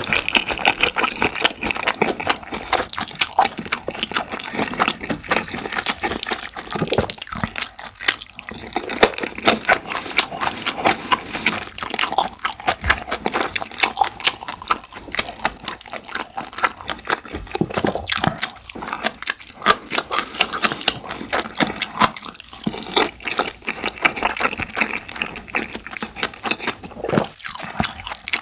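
Close-miked chewing and mouth sounds of a person eating curry rice and black-bean-sauce (jajang) rice: a dense, irregular run of quick clicks several times a second.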